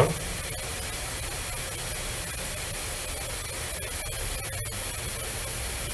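Steady hiss of background noise with a low hum underneath, at an even level throughout; the noise floor of the narrator's recording microphone.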